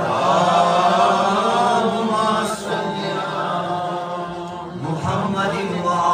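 Male voices singing a devotional ginan in a chanting style, with a rubab being played along.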